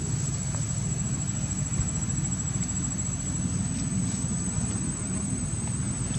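Outdoor ambience: a steady low rumble with a continuous high, thin whine running over it, and a few faint clicks.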